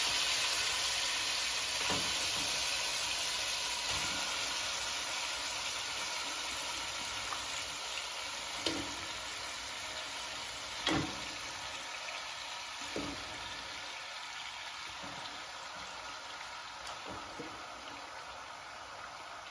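Marinated chicken pieces sizzling in hot sunflower oil in a nonstick pan, the sizzle slowly dying down as the oil cools under the added chicken. There are a few short knocks scattered through it.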